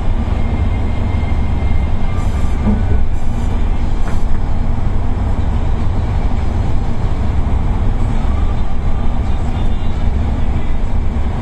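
Steady engine and tyre noise heard from inside the cab of a large road vehicle cruising on a motorway, mostly a deep low rumble.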